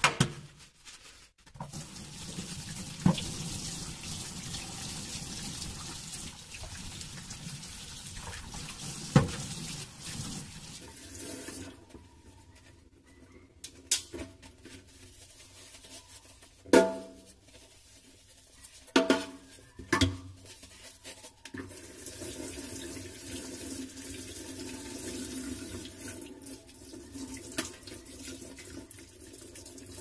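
Tap water running into a stainless steel sink while espresso machine drip tray parts are scrubbed. Metal parts knock and clank against the sink several times, most of them in a quieter stretch midway when the water is off.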